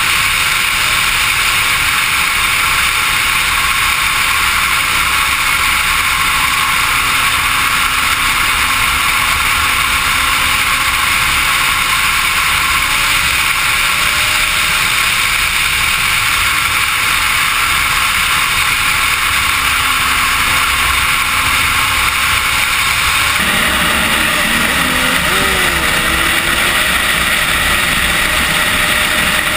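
Suzuki GSX-R sportbike's inline-four engine running at highway speed under a steady loud rush of wind, with slight pitch changes in the engine note. The sound shifts abruptly about 23 seconds in.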